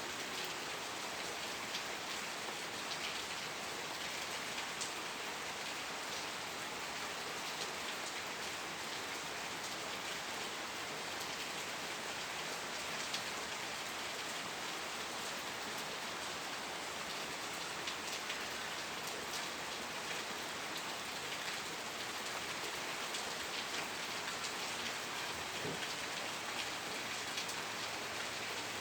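Steady rain falling, with the even hiss of many drops and scattered distinct drips hitting a surface.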